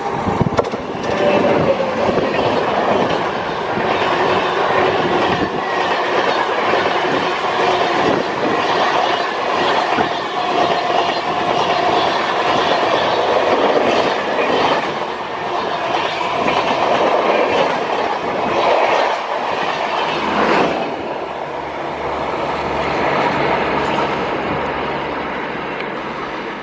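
Express train of LHB coaches hauled by a WAP7 electric locomotive running past, its wheels clicking over the rail joints in a steady rattle. About twenty seconds in the noise drops off sharply, and what remains fades toward the end.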